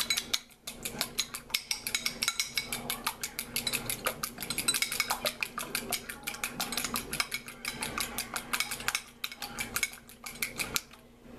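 Fork beating raw eggs in a small ceramic bowl: a rapid, steady clinking of the tines against the bowl, which stops shortly before the end.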